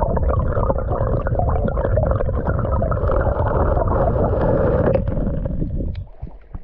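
Stream water heard through an action camera held underwater: a loud, muffled rushing and gurgling with many small clicks. The sound drops away about six seconds in as the camera comes up out of the water.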